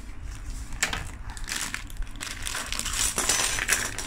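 Thin plastic packaging crinkling as Beyblade parts are tipped out, with small metal and plastic pieces clinking onto a tabletop.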